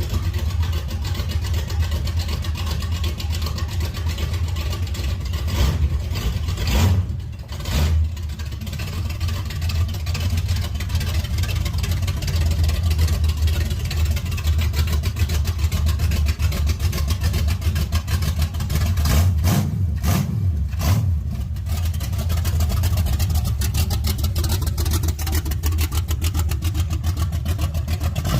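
Chevrolet 454 big-block V8 in a 1982 Camaro running steadily through an aftermarket exhaust, with a couple of brief dips in its sound.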